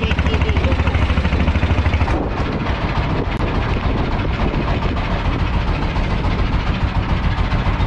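Boat engine running with a fast, even pulsing beat. About two seconds in, the beat weakens and the sound turns rougher and less regular.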